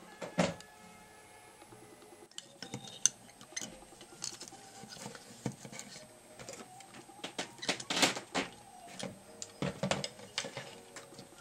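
Irregular small clicks, taps and knocks of hands handling hard doll limbs and a small metal hook tool on a worktable, with the loudest knocks around eight to ten seconds in.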